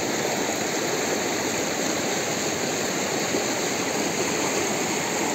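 Steady rushing of a small river's flowing water.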